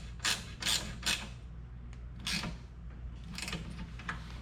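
Ratchet wrench clicking in short strokes, about three a second at first and then a few slower ones, as the nut of a muffler hanger clamp is tightened down on its bolt.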